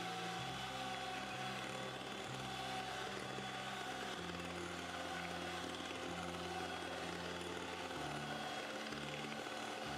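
Electric hand mixer running steadily, its wire beaters creaming butter, sugar and egg into cake batter.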